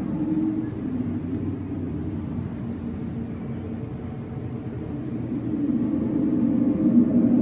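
Steady low rumbling hum, with low droning tones that fade in the middle and swell again near the end.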